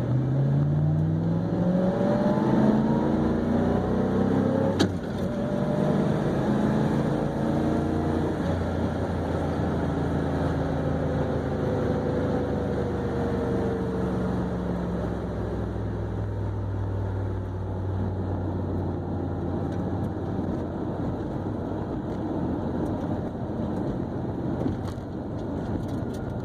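Chevy Camaro drag-launching: the engine revs up through the gears in a few rising sweeps over the first few seconds, then runs steadily and slowly winds down as the car comes off the throttle after the run.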